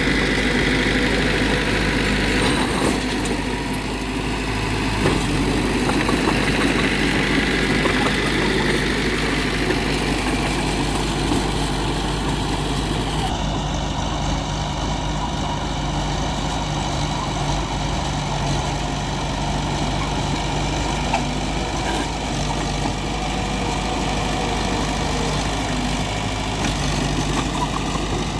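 Diesel engines of heavy construction machinery running steadily, with a shift in tone about halfway through.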